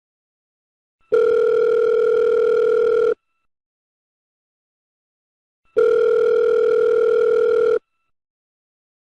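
Telephone ringback tone: a steady beep about two seconds long, sounding twice with a gap of about two and a half seconds, while the call rings unanswered.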